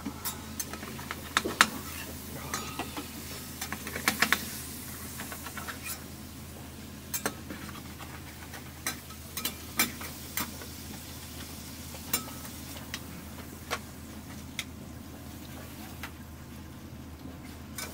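Scattered clinks and taps of cooking utensils and dishes, clustered in the first few seconds and sparser later, the loudest about a second and a half in, over a steady low hum.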